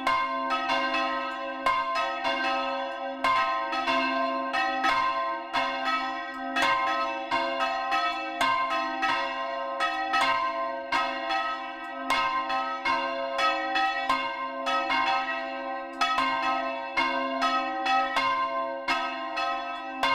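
Church bells swung full circle by hand, striking over and over in a quick, irregular, overlapping clangour while their ringing carries on underneath.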